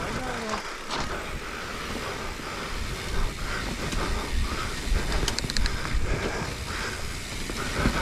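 Mountain bike being ridden along a forest trail: tyres rolling over dirt and the bike rattling, with wind rumbling on the microphone. A quick run of clicks comes about five seconds in.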